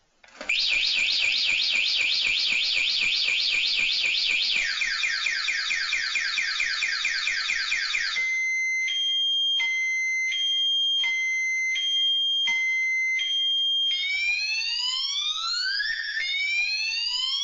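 Car alarm siren going off and cycling through its tones. It starts with a fast high warble, drops to a lower fast warble about five seconds in, and switches to a two-note hi-lo alternation about eight seconds in. About fourteen seconds in it changes to slow rising whoops.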